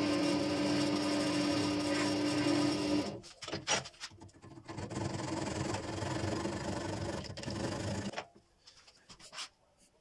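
Wood lathe running with a steady hum while a chisel cuts the spinning bird cherry finial; the lathe stops about three seconds in. A hand saw then rasps through the wood for about four seconds, followed by a few faint taps and handling sounds.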